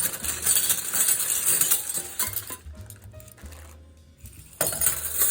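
Metal spoons and forks clinking and jingling against each other as they are handled, in quick clusters of small clinks, then again briefly near the end. Background music plays underneath.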